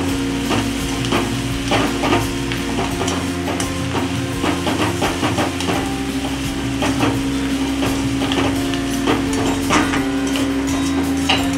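Metal spatula scraping and knocking irregularly against a steel kadai while onions stir-fry and sizzle in oil, over a steady low hum.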